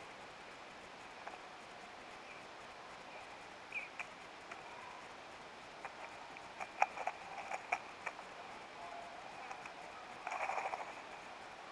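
Steller's jays pecking and picking at peanuts in the shell: scattered sharp taps and clicks of bills against shells and wood, bunched between about six and eight seconds in, then a short rustling flurry about ten seconds in.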